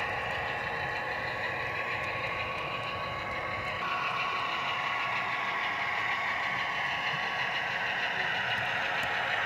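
Recorded diesel engine sound from an HO-scale model locomotive's DCC sound decoder: a steady engine drone whose pitch drifts slowly up and down, changing abruptly about four seconds in.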